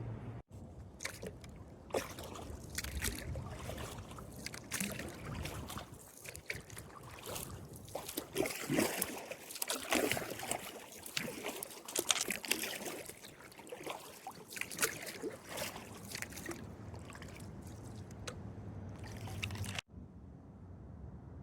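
Kayak paddle dipping into river water, with irregular splashes, drips and trickles.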